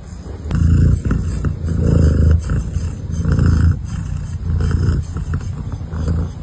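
Domestic cat purring loudly close to the microphone, a low rumble that swells and eases in a regular rhythm with each breath.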